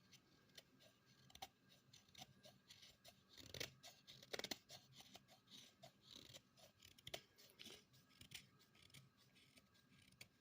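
Faint, irregular clicks and light scraping of a pocket knife being handled, several a second, a little louder around four seconds in.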